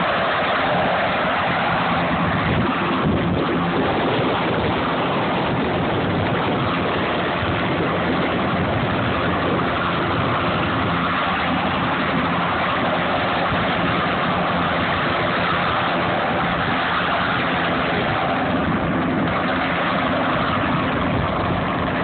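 Firefighting helicopter's rotor and engine running steadily as it hovers low over the water for a water pickup, an even, unbroken drone with a faint steady hum beneath.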